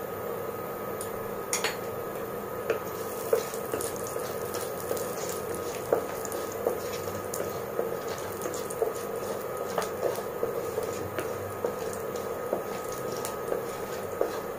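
Panch phutana seeds sizzling and crackling in hot oil in a non-stick kadai, stirred with a wooden spatula. The pops come irregularly and grow more frequent after about a second and a half, over a steady hum.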